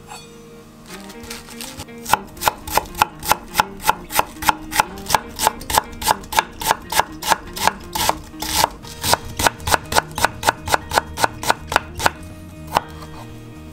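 Chef's knife shredding spring cabbage into fine strips on a bamboo cutting board: even, rapid strokes about three a second. They start about two seconds in and stop near the end, with one last stroke just after.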